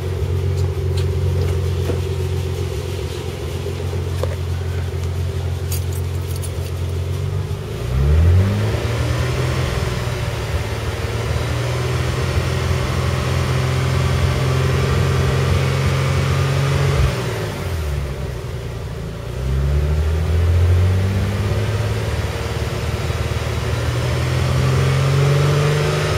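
Nissan 300ZX V6 engine running, its speed climbing sharply about eight seconds in, holding, dropping, then climbing again twice. It is recorded for a whining noise that the owner is chasing.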